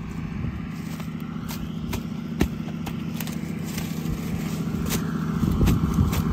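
International Harvester 1486 tractor's turbocharged six-cylinder diesel running steadily under load, with scattered sharp clicks and knocks over it, and the engine getting somewhat louder after about five seconds.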